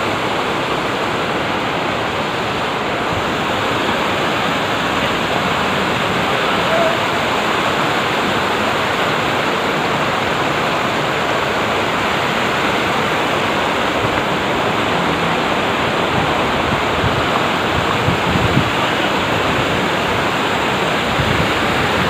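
Waterfall and the rocky mountain stream below it, water rushing steadily over and between boulders.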